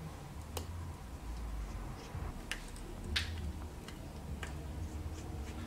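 Light, scattered ticks and clicks of a precision Phillips screwdriver bit working a tiny screw out of the metal bracket inside an iPhone 7, about five in all, the sharpest a little past three seconds in, over a low steady hum.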